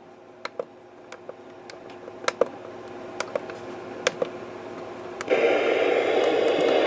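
A few sharp clicks, several in quick pairs, from handling a weather radio receiver, then about five seconds in a sudden steady hiss of radio static that keeps on.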